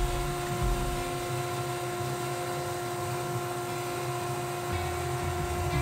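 Rikon 14-inch bandsaw running steadily with a constant motor hum while a maple board is fed through its blade.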